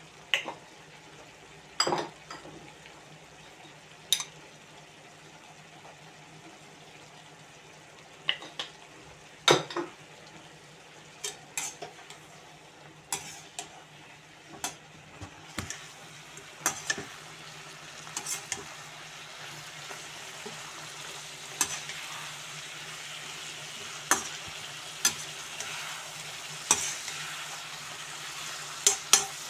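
A perforated steel skimmer ladle scraping and knocking against a black wok as chicken with onions and tomatoes is stirred, irregular clanks every second or two. Under it the food sizzles as it fries, the sizzle growing louder about halfway through.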